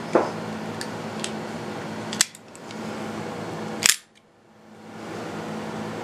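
Metallic clicks of a 13-inch Italian Batwing Swinguard switchblade being handled, with two sharp snaps about two and four seconds in, the second the louder, as the spring-driven blade fires and locks. A steady low hum runs underneath.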